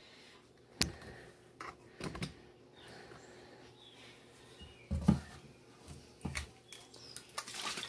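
A few light clicks and knocks of kitchen handling: a plastic bottle being picked up and handled over a plastic food container. A short, hissy rustle comes near the end.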